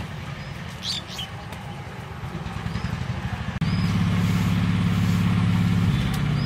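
An engine running steadily with a low, even hum; it becomes louder about three and a half seconds in.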